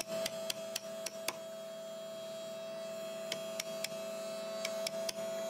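Chisel struck with a mallet, chopping a mortise in hardwood: a run of sharp knocks about four a second, a pause of about two seconds, then another run of knocks. A steady hum lies under the strikes.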